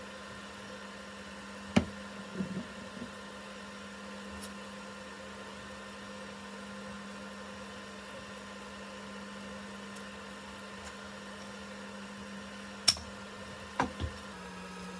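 Steady electrical hum, with a few sharp clicks and taps about two seconds in and again near the end.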